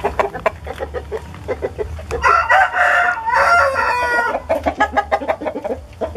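A rooster crows once, a loud crow in two parts starting about two seconds in. Quick, repeated short clucks come before and after it.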